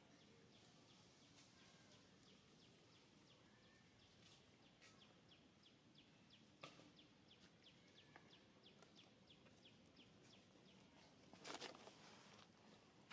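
Near silence: faint outdoor ambience with a steady series of faint, high, quick chirps, about three a second, that stop near the end. A single click comes a little past the middle, and a brief rustling scuff comes near the end.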